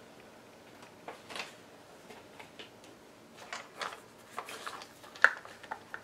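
Rummaging among craft supplies for a brush: scattered light clicks and rustles, with one sharper click about five seconds in.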